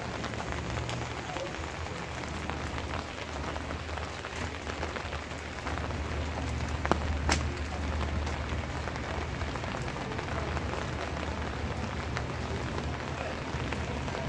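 Steady rain falling, a continuous hiss of drops with a low rumble underneath. A few sharp drip ticks stand out, the loudest about seven seconds in.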